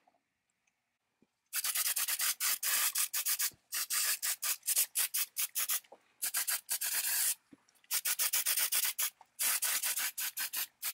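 Aerosol spray can spraying in five bursts of hiss, each one to two seconds long with short breaks between, starting about a second and a half in.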